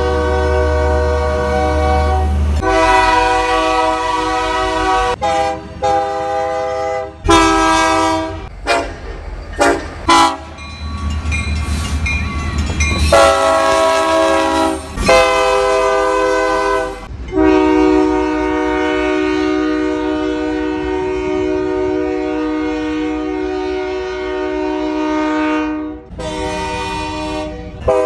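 Train horns sounding in a string of separate clips that cut abruptly from one to the next: several long blasts, a quick run of short toots, and one long held blast of about eight seconds, with a low rumble under the first.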